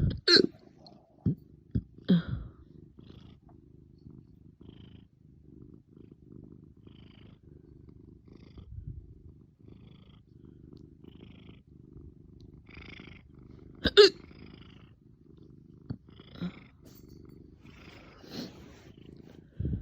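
A person hiccuping hard in sudden sharp gulps: a few near the start, the loudest about two-thirds of the way through, and two smaller ones near the end. A low, steady rumble runs underneath.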